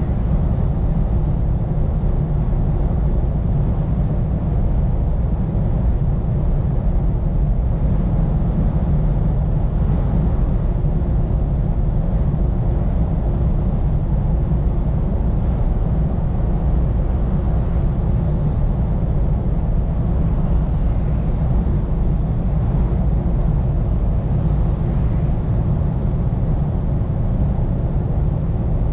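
Scania P410 truck driving along, heard from inside the cab: a constant low rumble of engine and road noise with no change in pace.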